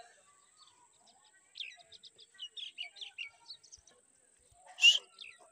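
Small birds chirping: a quick run of short, high chirps, followed near the end by one sharp click-like noise, the loudest sound here.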